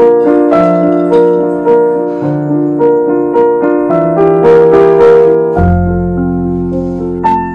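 Background music: a gentle piano melody over held chords, a new note about every half second, with a deeper bass note entering near the end.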